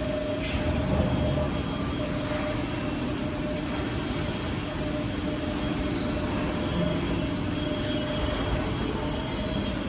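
CNC copper rod busbar processing machine running, a steady mechanical hum with a constant low tone.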